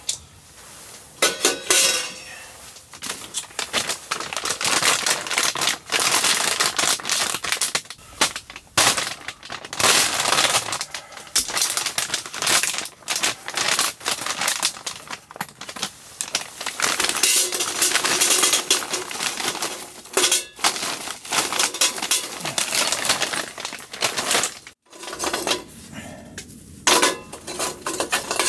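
Lumps of charcoal clattering and clinking against the metal charcoal bowl of a small tabletop camping barbecue grill as they are poured in from a bag and arranged by hand. Metal grill parts knock and clink as they are fitted in place. The clatters come one after another in quick, irregular runs.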